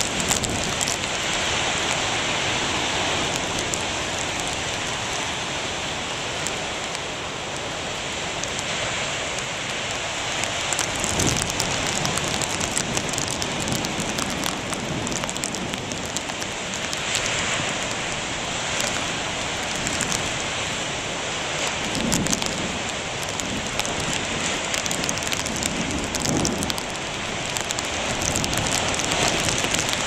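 Heavy storm surf breaking and washing over a rocky shore: a steady rush of churning water, with deep thuds as big waves break a few times.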